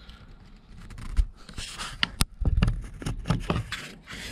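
Scattered light knocks, taps and scrapes as a board strip is worked into place along a boat stringer by hand, with a few low thumps from a hand-held camera being moved.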